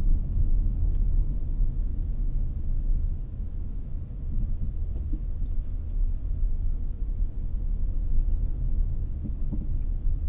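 Steady low rumble of a vehicle's engine and tyres heard from inside the cabin while driving slowly, with a few faint ticks.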